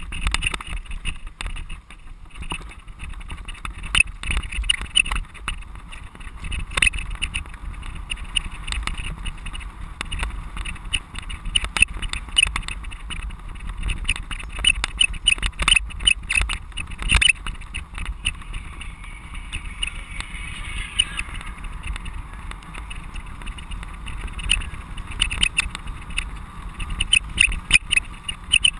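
Camera mounted on a cyclocross bike rattling and knocking as the bike rides over rough grass and dirt, with wind buffeting the microphone.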